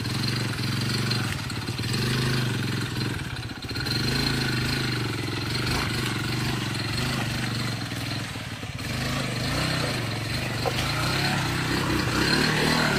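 Small underbone motorcycle engine running under load as the bike is ridden slowly through deep mud, its revs rising and falling unevenly.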